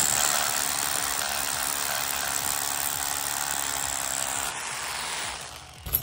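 Hammer drill with a masonry bit boring into a concrete slab, running steadily. It winds down and stops shortly before the end.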